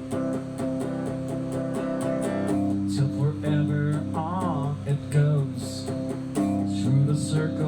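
Instrumental rock music: a strummed guitar backing under a lead guitar solo playing bent notes with wide vibrato.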